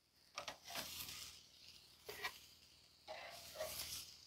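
Faint clicks and scrapes of metal tongs on a hot charcoal-grill grate as steaks are lifted off, in a few short bursts.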